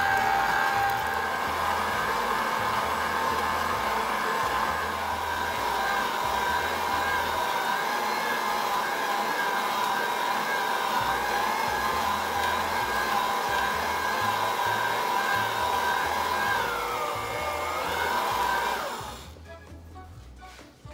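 Electric stand mixer kneading bread dough with a dough hook: the motor runs with a steady whine, dips in pitch briefly, and then stops about two seconds before the end.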